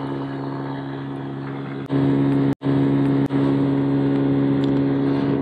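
Honda Forza scooter's single-cylinder engine running at steady speed, with wind and road noise, getting louder about two seconds in. The sound cuts out for an instant about halfway.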